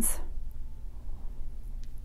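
Quiet room tone: a steady low hum, with a couple of faint small clicks from beads being handled on a wire.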